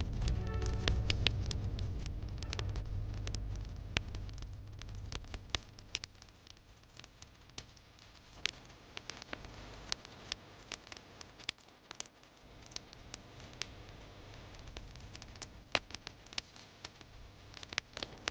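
Wood fire crackling in a fireplace: irregular sharp pops and snaps over a soft hiss. A low rumble fades away over the first few seconds.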